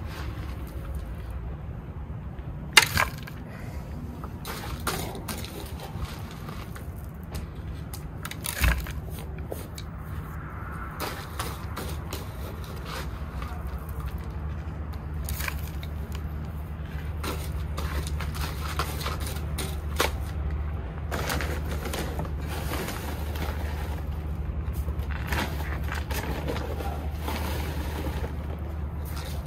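Handling of granular bonsai substrate: intermittent gritty clicks, rustles and a few sharp knocks, the loudest about three and nine seconds in, over a steady low hum.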